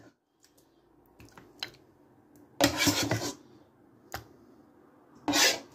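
Handling noise: a few small clicks and two louder rubbing scrapes, one about three seconds in and one near the end.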